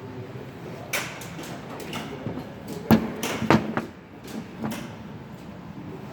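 Metal tools being handled and knocking together: four separate sharp clanks, the loudest about three seconds in, over a low steady background.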